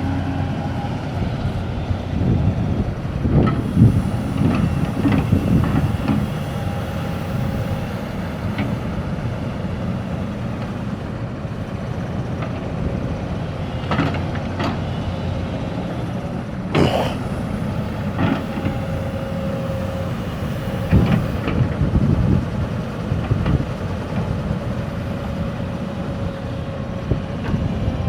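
Backhoe's diesel engine running steadily under work, with a faint steady whine and a number of sharp knocks, bunched about 3 to 6 seconds in and again in the second half.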